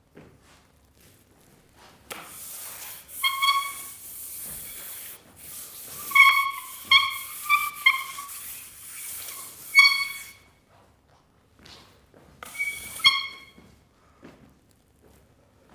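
Charcoal scrubbed and dragged hard across a large sheet of paper in several bursts of scratchy hiss, squeaking sharply in short chirps as it catches on the paper.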